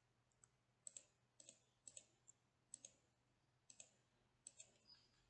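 Faint computer mouse clicks, about six of them, each a quick double tick of button press and release.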